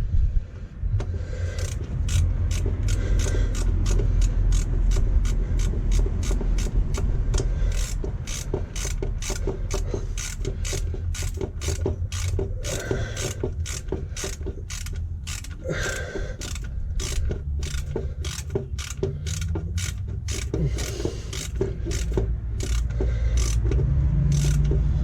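Hand ratchet wrench clicking in a steady run, about two to three clicks a second, as a bolt is tightened, over a steady low rumble.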